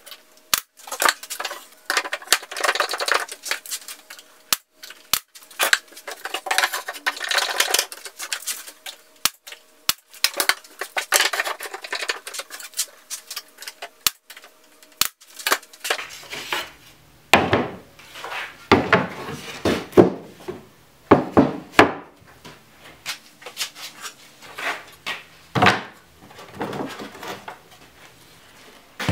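Weathered fence boards handled and fitted on a plywood jig: wood scraping and sliding with scattered clicks, then a run of sharp knocks and clatters in the second half.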